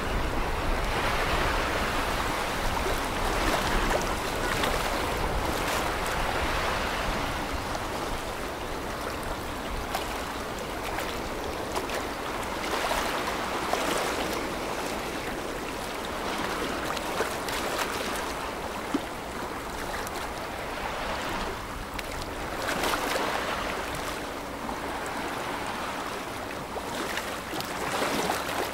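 Ship wake water washing and splashing against the riverbank, a steady rushing that swells and eases every second or two.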